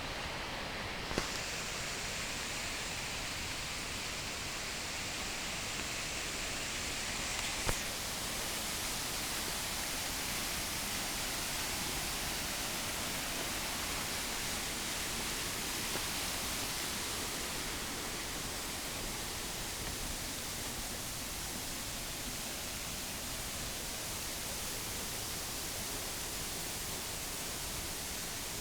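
Waterfall rushing: a steady, dense hiss of falling water. Two brief clicks, about a second in and near eight seconds in.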